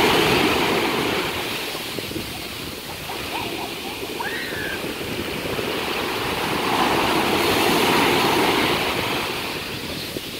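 Surf breaking on the shore and washing back, a continuous rushing of waves. It is loudest as a wave breaks at the start and swells again about eight seconds in.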